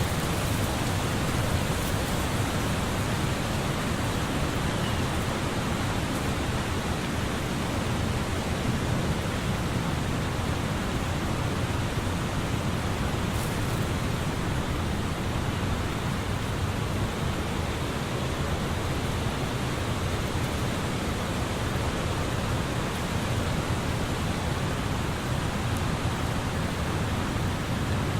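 Tree leaves rustling in a steady wind, an even, unbroken hiss.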